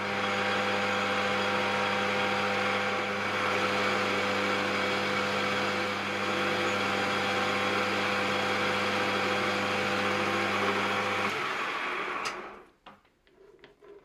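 Metal lathe running with a steady hum while a carbide insert tool turns bronze bar stock; it stops near the end, followed by a few faint clicks.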